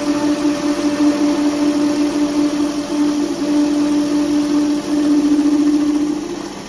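Metal lathe running with its chuck spinning as a cutting tool works the end of a small tubular workpiece: a steady mechanical hum with a strong even tone, dropping in level near the end.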